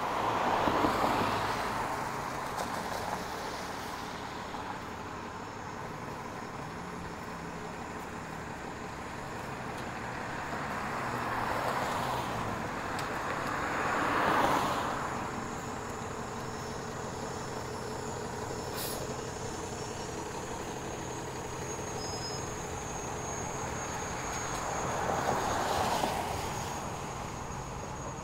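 Road traffic passing close by: a steady hum of traffic, with three vehicles swelling past, at the start, about halfway and near the end.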